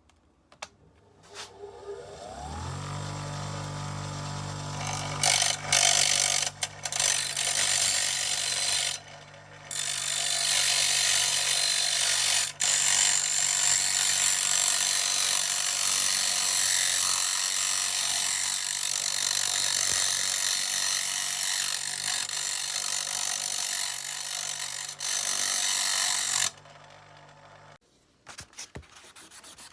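A small electric power tool, a grinder or sander, spins up over about a second and runs at a steady hum. From about five seconds in, a workpiece is pressed against it with a loud grinding-sanding noise, broken by two brief pauses. The motor cuts off a few seconds before the end.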